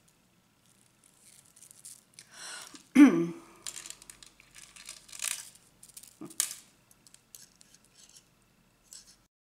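Beaded wire being handled and wrapped, with scattered light clicks and short rattles of clear beads. About three seconds in there is a sudden, louder sound whose pitch falls quickly.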